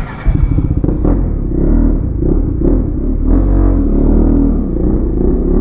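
Motorcycle engine pulling away from a standstill and accelerating, the revs rising and falling through the gears. It gets loud suddenly about a quarter second in.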